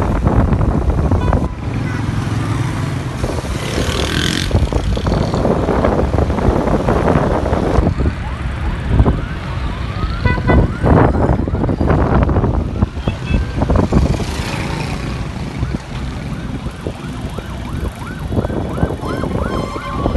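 Heavy road traffic with engines and wind buffeting the microphone, and a siren wailing in several spells, rising and falling in pitch, with quick repeated warbles near the end.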